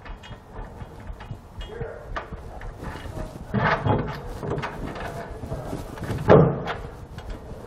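Hex nuts with split lock washers being spun on by hand onto carriage bolts through a steel bracket plate: small metallic clicks and scrapes, with louder knocks about three and a half seconds in and again about six seconds in.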